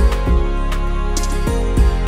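Background music: sustained notes over deep drum hits.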